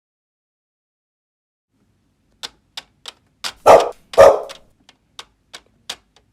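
A dog barking twice, about half a second apart, among a scatter of short, sharp clicks and taps.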